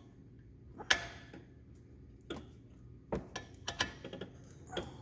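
A 14 mm wrench working the fitting of a brake soft line at the caliper: a scattering of sharp metal clicks and clinks, several of them bunched near the end.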